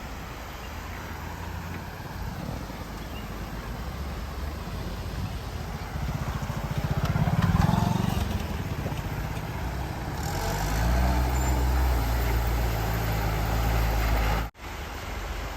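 Motor vehicle engine running, growing louder around the middle and holding a heavier low drone in the second half. It cuts out abruptly for an instant near the end.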